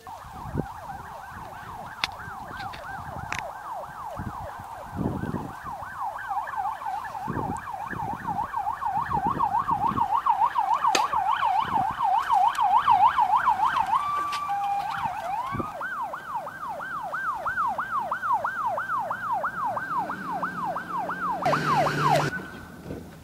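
Ambulance siren on a fire-department box ambulance, in a fast yelp that sweeps up and down about three times a second, loudest about halfway through. It briefly switches to steady tones partway through, then resumes and cuts off near the end with a short loud burst.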